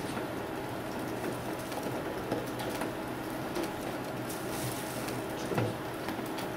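Room tone: a steady hiss with a faint low hum, broken by a few small ticks and rustles.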